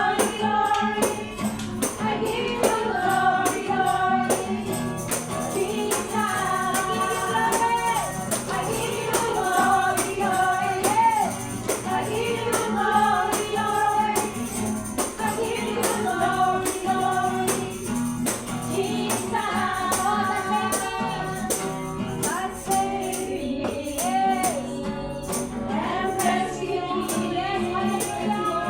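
Voices singing a worship song together with instrumental accompaniment, kept in time by a steady high percussion beat.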